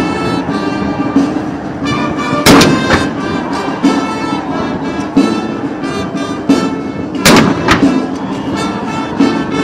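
Ceremonial gun salute from field guns: two loud blasts with echoing tails, about five seconds apart, a little over two seconds in and about three-quarters of the way through. Band music plays under them throughout.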